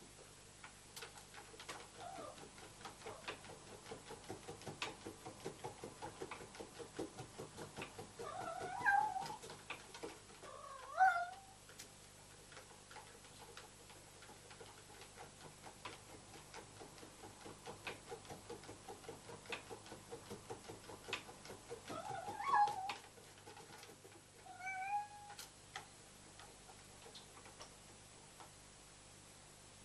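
A large cat exercise wheel turning with a quick, even ticking while a cat runs on it. The cat gives short meows, twice about a third of the way in and twice more past the two-thirds mark.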